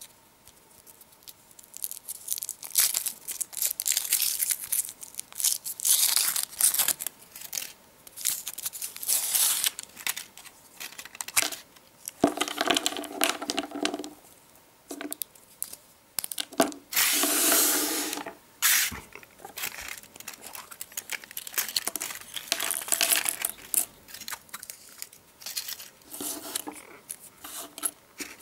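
Foil wrapper of a chocolate surprise egg crinkling and tearing in repeated irregular bursts as it is unwrapped by hand, then the chocolate shell and the plastic capsule inside being handled.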